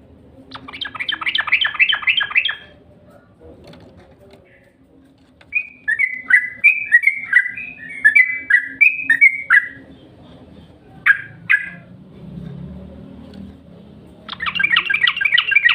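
Yellow-vented bulbul (trucuk) calling. A fast chattering trill starts about half a second in and lasts about two seconds. A few seconds later comes a run of about a dozen quick downslurred notes, then two short notes, and another fast trill near the end.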